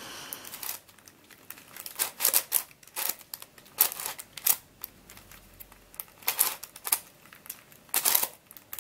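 Plastic twisty puzzle, an mf8 Radiolarian 2, being twisted by hand to scramble it: irregular clicks and clacks of its pieces as the faces are turned.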